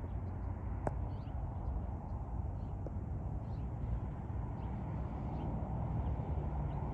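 Outdoor dawn ambience: faint, scattered bird chirps over a low, steady rumble.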